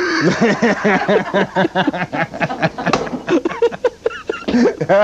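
Two men laughing hard, in quick breathy bursts of laughter that keep breaking off and starting again.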